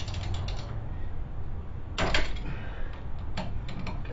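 Short bursts of metallic clicking and clatter from hand tools and parts being worked at a front wheel hub and brake rotor, the loudest burst about two seconds in and more near the end, over a steady low hum.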